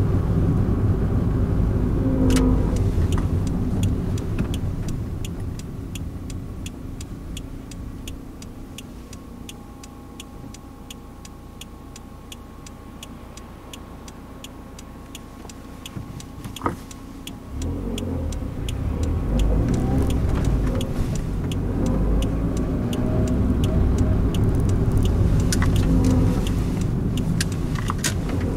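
Toyota AE111 Corolla Levin heard from inside the cabin: engine and road noise fade as the car slows and sits idling quietly, then after a single sharp click about 17 seconds in it pulls away and the engine and tyre noise rise again. A faint, regular light ticking runs underneath.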